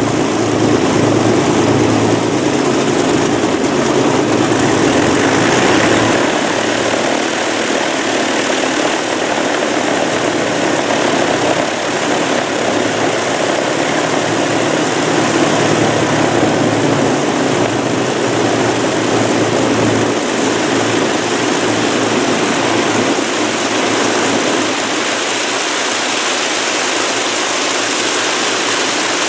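Lancaster bomber's Merlin V12 piston engines running steadily on the ground, propellers spinning.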